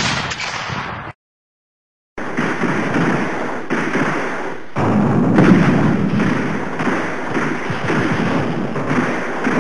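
ArmaLite AR-10 7.62 mm rifle fire on an old film soundtrack. A burst of rapid shots cuts off about a second in, and after a second of silence a long, dense stretch of continuous firing follows.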